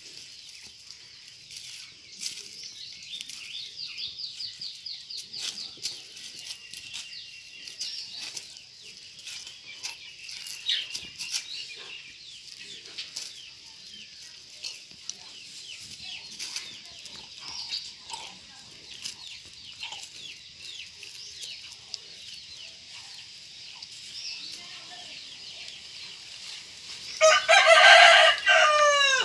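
A dog chews and licks at a papaya, making small wet smacking clicks, over a steady high chirping. Near the end a rooster crows once, loud and drawn out, falling slightly at its close; it is the loudest sound.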